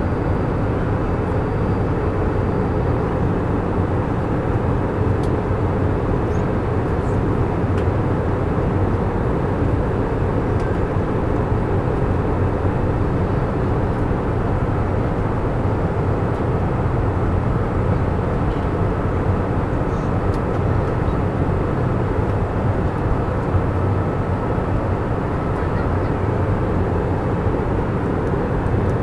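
Steady cabin noise inside an airliner: an even, low rushing drone of engine and air noise that does not change.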